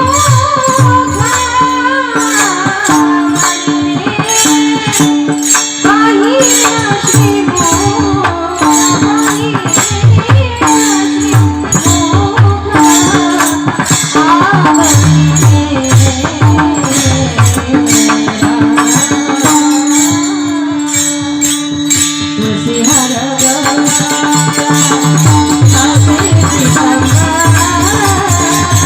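Marathi devotional bhajan: a woman singing over a steady held note, with a hand drum and small hand cymbals keeping a quick, steady beat.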